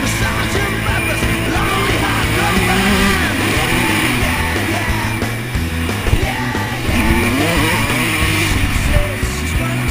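Punk rock music with singing.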